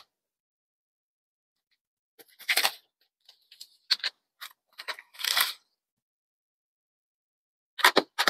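Packaging being opened and handled by hand: a few short bursts of crinkling and tearing with sharp clicks, separated by silence.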